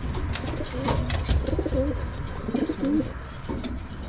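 Racing pigeons cooing: a few low, wavering coos in the middle, with light clicks in between.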